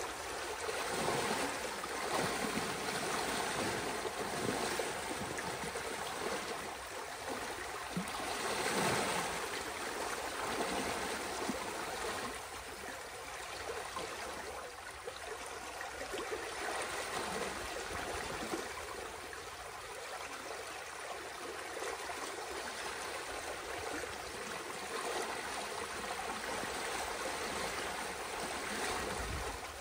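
Water rushing through a breach in a beaver dam as the pond drains, a steady rush with irregular louder swells and splashes as the gap is raked clear.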